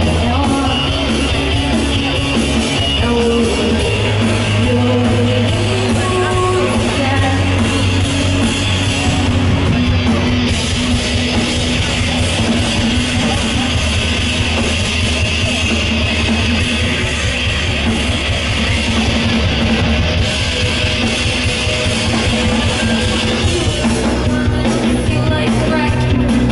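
Live rock band playing on stage: electric guitar, bass and a full drum kit, with a woman singing at times, heard loud and steady through the PA from the crowd.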